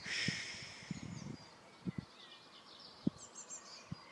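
Birds chirping in the background, with a soft hiss in the first second and three faint dull knocks later on.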